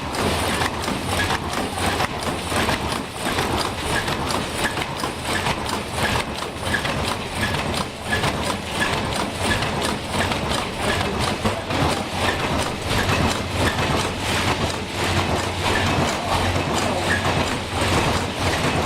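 Automatic pneumatic tape-strapping machine (membrane baler) running, a steady mechanical clatter full of clicks with a short high blip repeating about every half second over a low hum.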